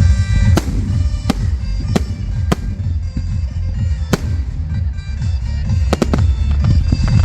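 Fireworks bursting overhead: a string of sharp cracks every second or so, with a quick double crack near the end, over a constant deep rumble. Music plays along with the display.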